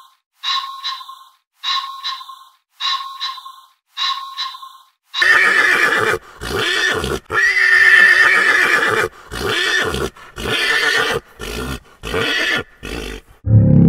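A bird gives five short, evenly spaced calls, then a horse whinnies in a long run of loud neighs, one after another, for the rest of the time.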